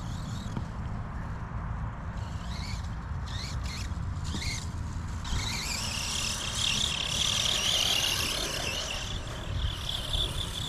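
Redcat Volcano EPX RC monster truck's brushed electric motor whining. It comes first in short rising bursts, then as a sustained, wavering high whine from about five seconds in, over a steady low rumble.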